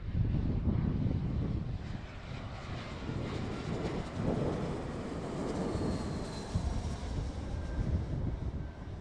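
Airliner on landing, its engines a steady low rumble with a faint high whine around the middle.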